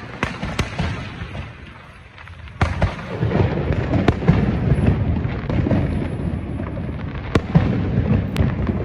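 Fireworks going off: a few sharp bangs, then from about three seconds in a louder, dense crackling rumble of many bursts, with more single bangs near the end.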